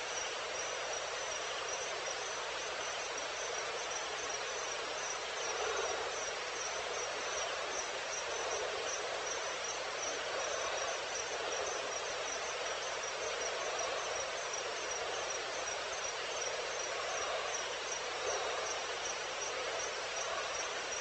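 Night-time insects, crickets by their sound, chirping in a steady, rapid, high-pitched pulsing trill over a soft hiss of background noise.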